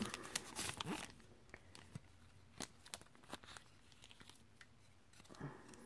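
Plastic packaging of a nail stamping plate crinkling as it is handled, densest in the first second, then a few light rustles and ticks.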